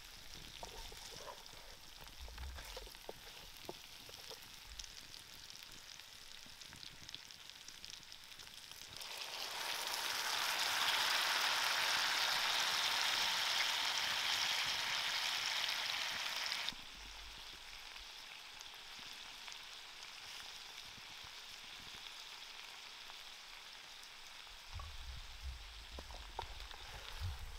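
Mackerel tuna frying in a pan of oil and sauce over a wood fire: a soft sizzle with small taps and scrapes of a wooden spatula. About nine seconds in the sizzle swells to a loud, steady hiss that lasts about seven seconds and stops abruptly. Near the end the spatula stirs again, with low rumbling and clicks.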